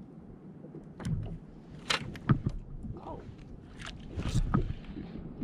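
Water slapping and splashing against a plastic fishing kayak's hull, with a few short knocks on the boat, loudest about two seconds in and again near the end.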